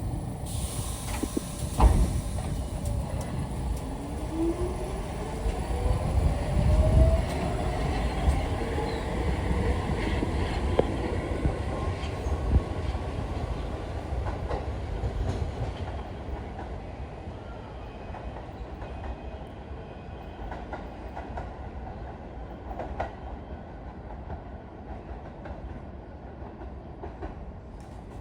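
New York City R46 subway train pulling out and accelerating, its traction motors giving a whine that rises steadily in pitch over about ten seconds, with wheels clacking over the rail joints. The sound then slowly grows fainter as the train draws away.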